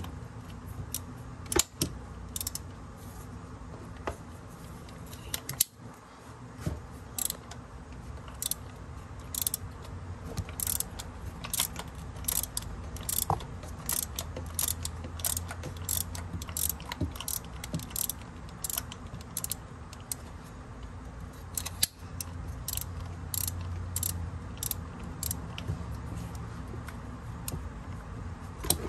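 A 3/8-inch socket ratchet clicking in runs of short back-and-forth strokes as it turns a spark plug socket on an extension, loosening a spark plug in a Honda V6 cylinder head.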